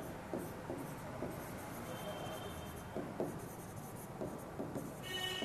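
Faint, irregular taps and scratches of a stylus writing a word on an interactive smartboard screen.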